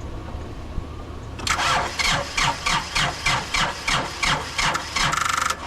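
A tractor's electric starter cranking the engine slowly, with a rhythmic pulse about three times a second, then a brief rapid buzz before it cuts off suddenly. The engine does not catch; the battery is weak and has needed jumper cables.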